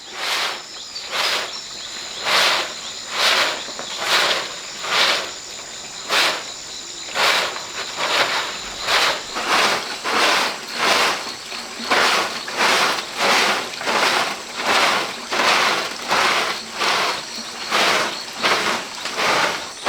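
Rhythmic scraping strokes, a little over one a second, each about half a second long. Under them runs a steady, high insect shrill.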